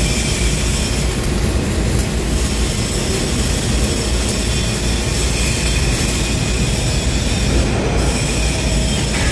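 Flux-cored arc welding on steel: the arc gives a steady, loud crackling hiss that stops a little before the end, over continuous loud workshop noise.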